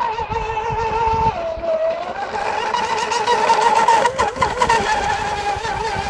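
Radio-controlled powerboat engine running at high speed: a steady high-pitched note that dips briefly about a second in, then climbs back and grows loudest a little after the middle as the boat passes closest.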